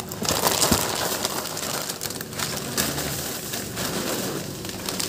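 Plastic packaging rustling and crinkling close to the microphone, with a dull knock just under a second in.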